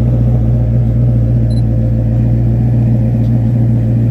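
A classic Porsche 911's air-cooled flat-six idling with a steady, even rumble as the car creeps forward.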